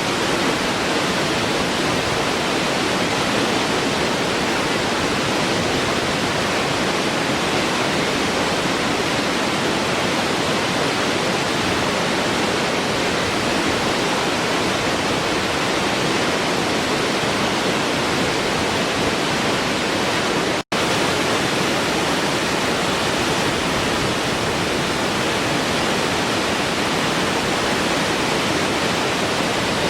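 Waterfall: a steady, dense rush of falling water, even throughout, with the sound cutting out for an instant about two-thirds of the way through.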